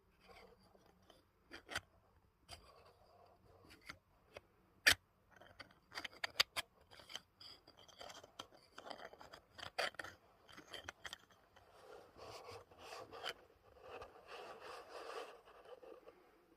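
Hard plastic parts of a 3D-printed fidget toy being handled: irregular sharp clicks and snaps with stretches of scraping and rubbing, busier in the second half.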